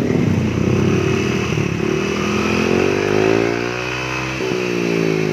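Yamaha Aerox 155 scooter's single-cylinder engine running through an aftermarket 'standard racing' exhaust, revved up and back down once about two seconds in, then settling to a steady idle. The exhaust note is one the owner finds pleasing and deep enough.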